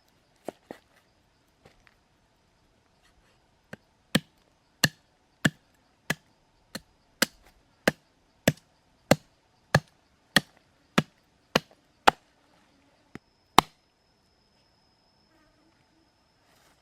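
Chopping on a cutting board with a kitchen knife or cleaver: a dozen-odd sharp strokes at a steady pace of about one and a half a second, after a few scattered taps. A faint steady high insect buzz is audible near the start and end.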